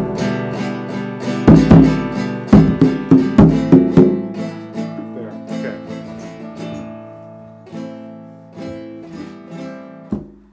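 Background music on acoustic guitar: a run of sharp strummed chords in the first few seconds, then quieter ringing notes that fade away.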